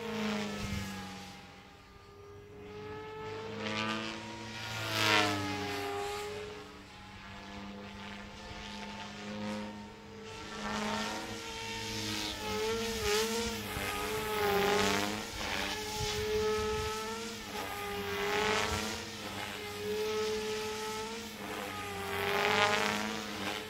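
Electric MSH Protos 380 RC helicopter flying at high headspeed: a rotor whine and blade buzz that keeps sliding up and down in pitch as it passes back and forth. It swells loudest about 5 seconds in and again near the end.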